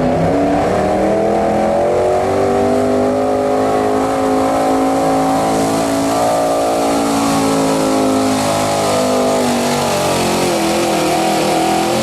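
A Pro Stock pulling tractor's turbocharged diesel engine running flat out under load on a pull. Its pitch climbs over the first two seconds, holds, then sinks gradually in the second half as the load drags it down.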